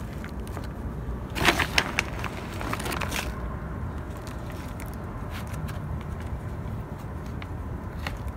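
Hands working dry potting soil into small plastic nursery pots around succulent cuttings: scattered small clicks and crumbly crackling, with a cluster of louder rustles between about one and a half and three seconds in, over a steady low rumble.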